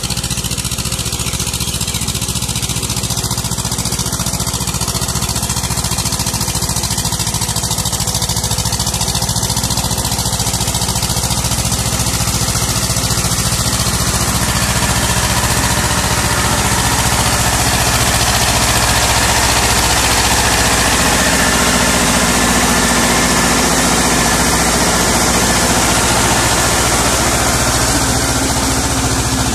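Farm tractor's diesel engine running steadily as it drags a cultivator on cage wheels through flooded paddy mud, puddling the field before rice planting. The engine grows louder in the second half as the tractor comes close.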